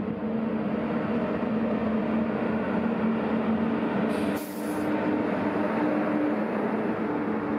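NS class 1700 electric locomotive hauling Intercity coaches slowly past: steady rolling noise and a hum with two held tones, and a short hiss about four seconds in as the locomotive goes by.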